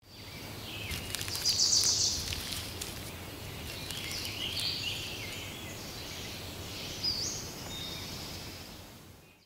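Forest ambience: several birds chirping and whistling over a soft, steady hiss, the calls loudest about two seconds in. It fades in at the start and fades out at the end.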